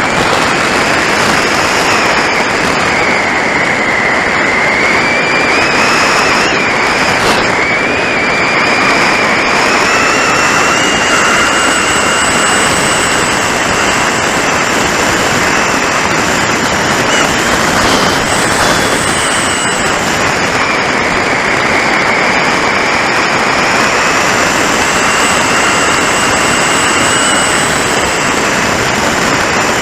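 Onboard audio from an electric RC glider in flight: a 1050kv brushless motor turning a 10x7 propeller gives a steady high whine whose pitch drifts slowly up and down. Heavy wind rush over the airframe and microphone runs underneath it.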